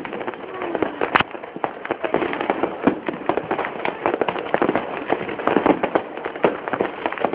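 Fireworks going off in rapid succession: a dense, unbroken crackle of bangs, several a second, with one louder bang about a second in.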